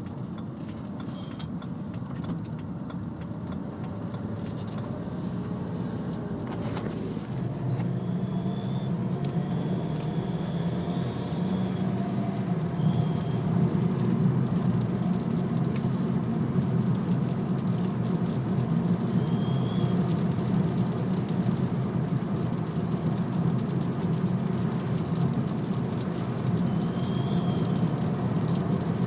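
BMW 320d E90 four-cylinder diesel car under way, its engine and road noise building slowly. Over this a thin high-pitched whistle comes and goes several times, held longest for a few seconds. This is the whistle the owner hears only under load and acceleration and takes for a turbo whistle.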